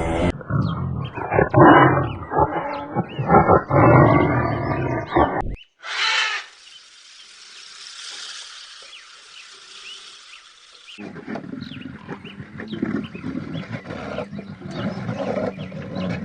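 A large animal growling and roaring in loud calls for about five seconds, then a sudden cut to high chirps over a steady hiss, then another run of animal calls from about eleven seconds in.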